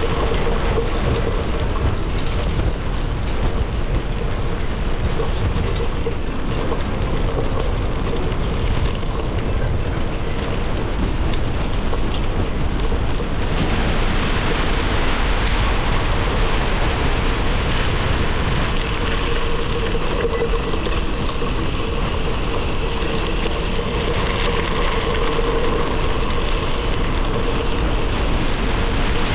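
Gravel bike rolling along a forest trail: a steady rumble of 38 mm Panaracer GravelKing SS tyres on gravel, mixed with wind rushing over the action camera's microphone. The noise turns brighter and hissier a little under halfway through.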